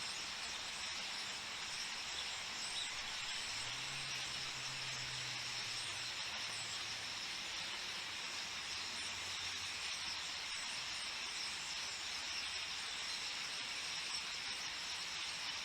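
A large flock of starlings chattering at a roost, heard as a steady hissing wash of high calls. A faint low drone comes in about four seconds in and fades out a few seconds later.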